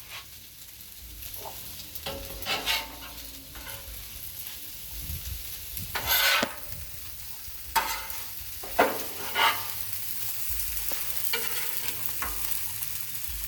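Fried rice with chicken and pork sizzling on a Blackstone flat-top griddle, with spatulas scraping and turning it across the steel top in irregular strokes. The longest, loudest scrape comes about six seconds in.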